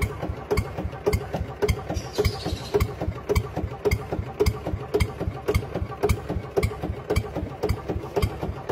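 Tractor engine idling with a steady, even chugging beat, about two strong beats a second.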